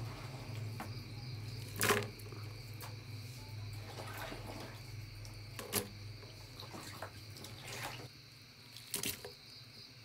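Night insect chorus: a steady, high-pitched chirring. A few sharp rustles or knocks sound about two, six and nine seconds in, and a low hum fades out about eight seconds in.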